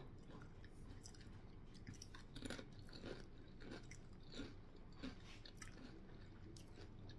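Faint chewing of crunchy veggie tortilla chips, with a short crunch every half second or so.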